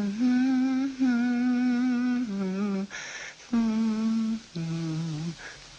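A cartoon character's voice humming a slow, sad tune in long, wavering held notes, with short breaks for breath between phrases.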